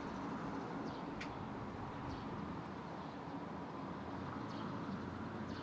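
Barn swallow fledglings giving several short, high chirps while waiting to be fed, over a steady low background rumble.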